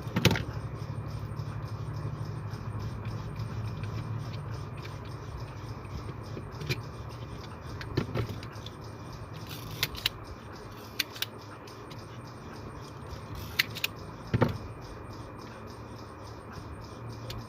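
Scattered light clicks and taps of hands and tools handling wires on a switch board, over a steady low hum.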